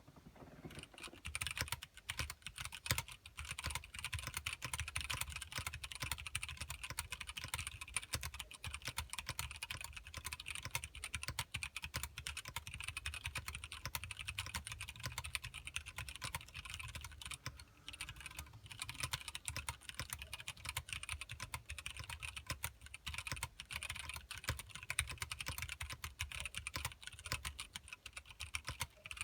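Steady typing on a Winkeyless B.mini mechanical keyboard with Zealio 67g tactile switches and Deep Space DSA keycaps: dense, irregular keystrokes, with one short pause a little past the middle.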